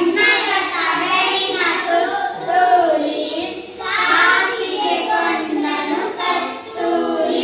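A small group of young children singing a Kannada rhyme together in unison, with a short pause about three and a half seconds in.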